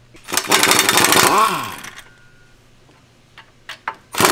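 Pneumatic wrench running hard for about a second, then spinning down with a falling whine, loosening the drive shaft flange bolts; a second burst starts near the end.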